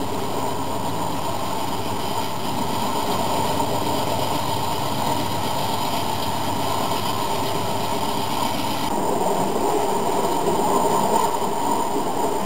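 HO scale model coal train running past, its hopper cars' wheels rolling on the track with a steady rattling running noise that grows a little louder near the end.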